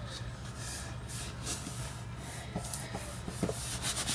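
Hands rubbing and pressing a paper panel flat onto black cardstock: a soft, dry paper-on-paper rubbing with a few light ticks as the paper shifts.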